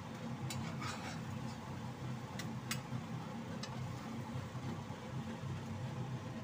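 Spatula and spoon clicking against a wok a handful of times while lifting food out, over a steady low hum.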